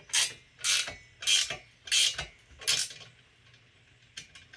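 Ratchet wrench tightening a bolt on a steel engine stand: five quick strokes of clicking, about one every two-thirds of a second, stopping about three seconds in, with a few small clicks near the end.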